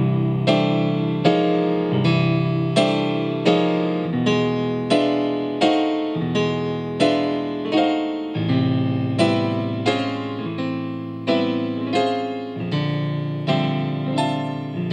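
Yamaha CP stage piano playing a solo instrumental passage: repeated chords struck about every 0.7 seconds, each dying away before the next, with the bass note changing every few chords.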